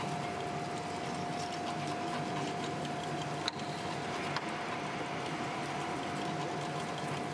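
Plastic twine winding machine running steadily, a constant high whine over a fine rapid clatter, with two sharp clicks about a second apart in the middle.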